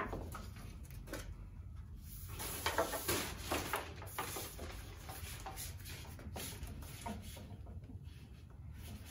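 Faint scattered clicks, light knocks and rustling from handling work: an extension cord being plugged in and a 2x4 board being moved and set against a miter saw. The saw is not running.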